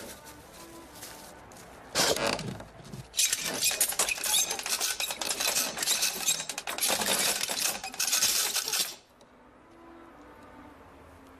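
A short noisy burst about two seconds in, then about six seconds of dense metallic rattling and clinking that stops suddenly, a foley effect of a machine at work.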